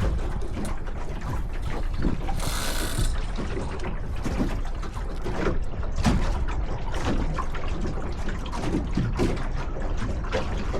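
Sailboat hardware clicking and ticking irregularly, like ratchet blocks and fittings as sheets are worked, over a steady rumble of wind on the microphone, with a short hiss about two seconds in.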